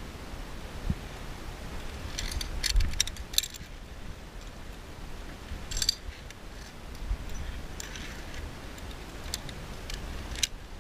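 Metal carabiners of a via ferrata lanyard clinking against the steel safety cable as they slide and are handled, in a cluster of clinks two to three seconds in, then single clicks every second or two.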